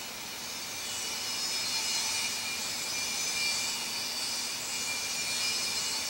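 Chorus of insects: several steady high-pitched trills at different pitches, with a higher hissing buzz that swells and fades.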